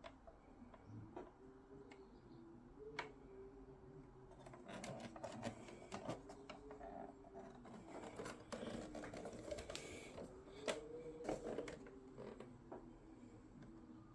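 Irregular clicks and rattles of small hard objects being handled, busiest in the middle, over a faint wavering hum.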